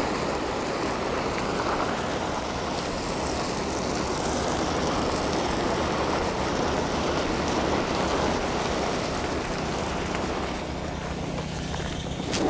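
Folded flatbed tarp being dragged across gravel: a continuous scraping rush that eases a little near the end.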